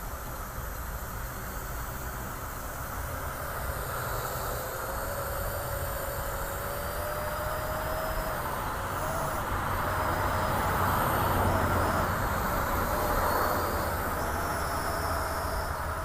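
AR.Drone quadcopter's motors and propellers whirring in flight, a steady hum with a thin whine that wavers in pitch as the throttle changes. It grows louder a little past the middle, then eases off.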